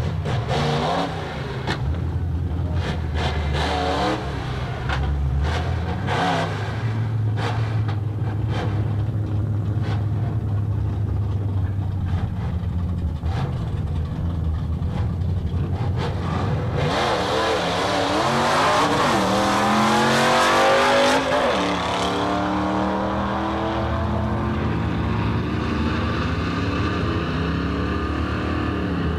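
Fox-body Ford Mustang drag car idling at the start line with short revs, then launching hard about seventeen seconds in. The engine note climbs, drops at each gear change and climbs again as the car pulls away down the strip.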